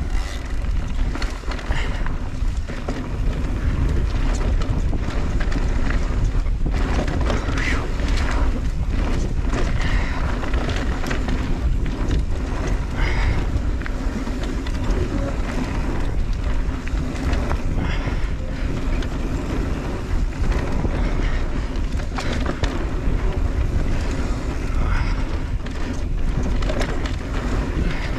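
Mondraker Crafty Carbon R electric mountain bike ridden along a dirt trail: a steady rumble of wind on the microphone and tyres rolling, with scattered clicks and clatters from the bike over bumps.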